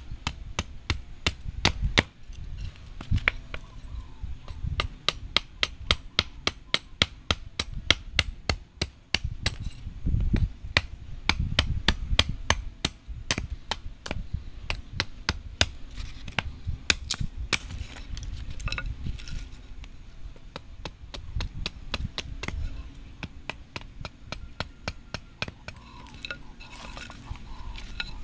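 Small hatchet chopping along a wooden strip, quick repeated blows about two to three a second that thin out and grow fainter in the last third.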